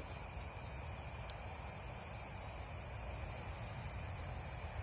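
Crickets chirping outdoors at night: a steady high-pitched trill that swells in short pulses more than once a second, with a faint click about a second in.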